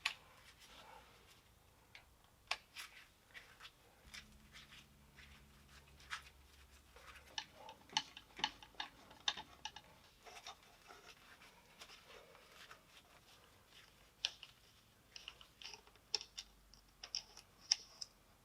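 Scattered light clicks, taps and clinks of hand tools and small metal parts being handled during a machine teardown, more frequent near the end, with a faint low hum for a few seconds early on.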